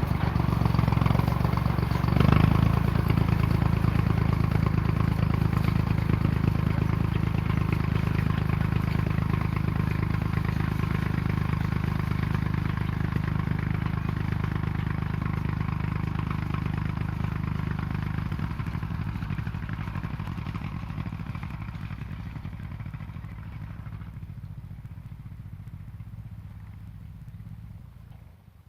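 Small Ferguson tractor's engine running steadily, with a brief rev about two seconds in, then fading gradually over the last ten seconds as the tractor pulls away.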